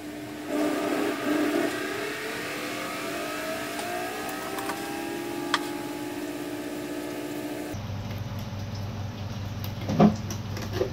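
Washing machine motor spinning up, its whine rising steadily in pitch over several seconds before giving way to a low steady hum. Near the end a sharp knock as the knife chops through the salmon steak onto the wooden cutting board.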